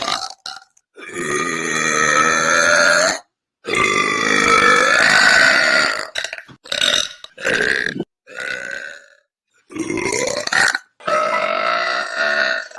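A woman belching repeatedly. She gives two long, drawn-out belches of about two seconds each, then a run of shorter belches with brief silent gaps between them.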